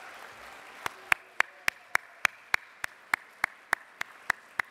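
Hand clapping close to a podium microphone: sharp, evenly spaced claps about three or four a second, starting just under a second in, over fainter applause from a room.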